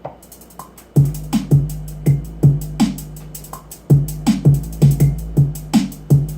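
Simple electronic beat played back from a Maschine Mikro MK2 drum machine: a two-note bass line with hi-hat and snare drum. It kicks in about a second in and repeats as a steady loop.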